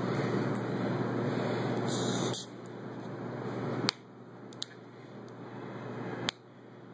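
Carbonated soda being poured from a plastic bottle into a small cup and fizzing. A steady pour gives way to two shorter pours that grow louder as the cup fills, and each one breaks off sharply.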